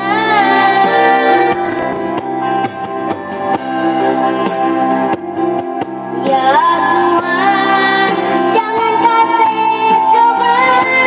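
A young girl singing an Indonesian pop ballad over a backing track, holding one long note through the second half.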